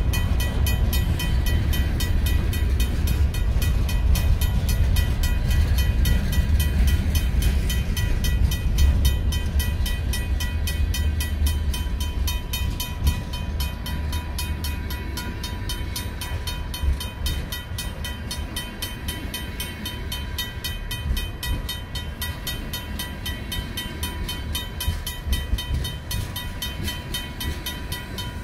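Freight train cars, covered hoppers and then tank cars, rolling past with a heavy low rumble that eases somewhat over the second half. Over it the crossing's RACO mechanical bell rings steadily with rapid, even strokes.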